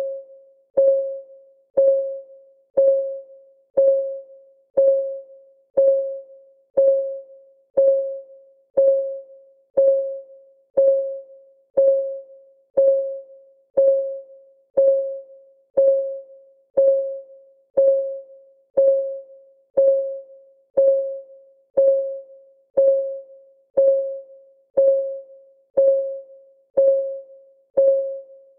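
Countdown timer's clock-ticking sound effect: a steady tick once a second, each a short pitched click that rings briefly and fades.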